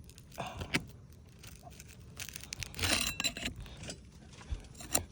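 A metal hand tool scraping and clinking against asphalt shingles as they are pried at to break their seal, in short, irregular bouts.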